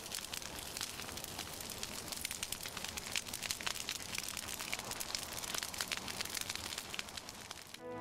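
Altar fire crackling: a steady hiss full of small sharp snaps, which stops abruptly near the end.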